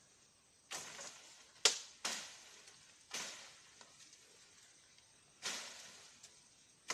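Dry bamboo leaves and brush crunching and rustling in about six separate bursts, each starting sharply and fading quickly, with one sharp crack about a second and a half in.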